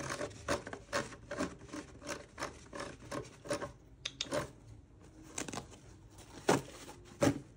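A Bounty paper towel sheet hanging from its roll being pulled and torn: quick, scratchy rustling strokes, about three or four a second, through the first half, then sparser, with two sharper, louder strokes near the end.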